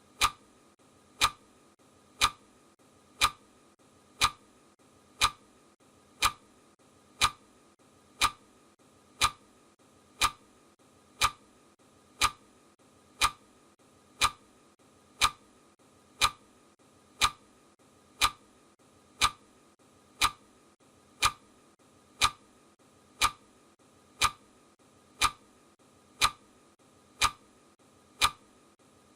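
Countdown timer's clock ticking sound effect: one sharp tick each second, evenly spaced.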